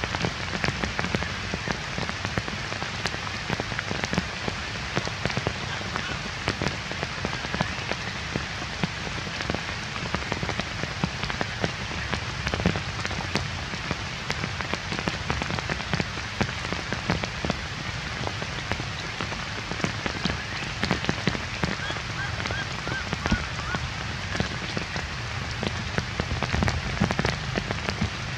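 Heavy rain falling steadily on a forest floor of dead leaves, a dense even patter of countless drops.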